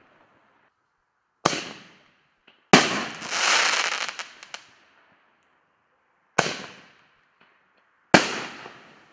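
5-inch artillery shell fireworks going off: four sharp bangs, about a second and a half in, near three seconds, after six seconds and after eight seconds, each dying away over a second or so. After the second bang comes a crackling hiss lasting about two seconds.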